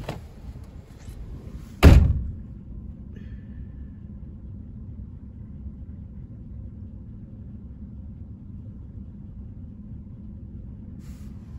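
A pickup truck door slams shut about two seconds in, then a steady low rumble fills the cab, typical of the truck's engine idling.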